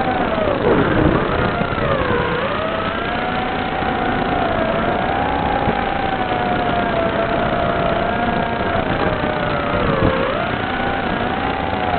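Small FPV quadcopter's brushless motors and propellers whining over a steady hiss. The pitch glides up and down with the throttle and drops sharply twice, about a second in and near the end, before climbing back.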